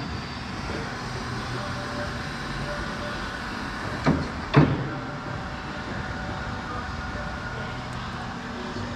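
Raymond R40TT electric reach truck's mast lowering from full height, with a steady hydraulic hum and hiss. Two sharp metallic clunks come from the mast about half a second apart, some four seconds in, the second one louder.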